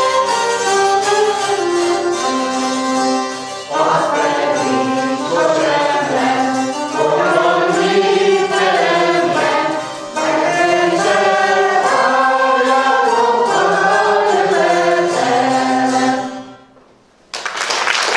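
Hungarian folk song sung by a group of singers, accompanied by citeras (table zithers) and a tárogató. The song ends about a second and a half before the end, and after a brief silence applause breaks out.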